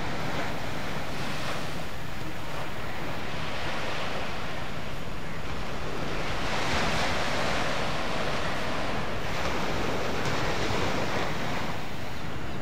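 Sea surf washing onto a sandy beach, with wind buffeting the microphone as a low rumble. The surf swells louder about halfway through, then eases.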